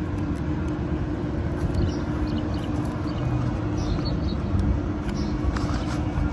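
Steady low mechanical hum of a running motor, with an uneven low rumble underneath.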